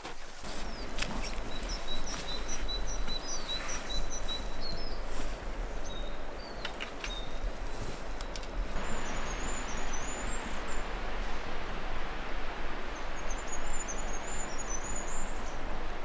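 Steady rush of river rapids, getting louder about halfway through. Small birds sing over it: a short chirping phrase repeated quickly in the first few seconds, then high thin trills twice later on.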